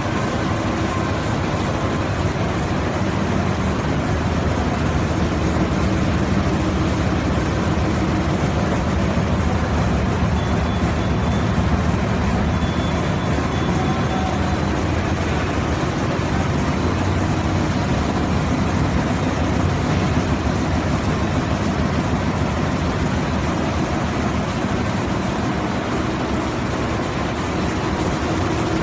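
Wide-width satellite printing press running: a loud, steady industrial machine noise with a low hum underneath.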